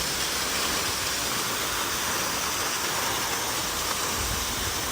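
A small waterfall's water pouring and splashing in a steady, unbroken rush.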